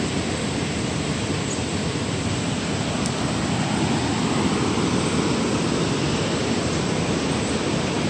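Steady rushing of a shallow river flowing over rocks and riffles, a touch louder about halfway through.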